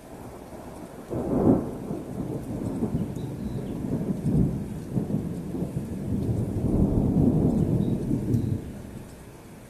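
Thunder from a nearby strike: a sharp clap about a second in, then a long rolling rumble that swells again late on and dies away after about seven seconds.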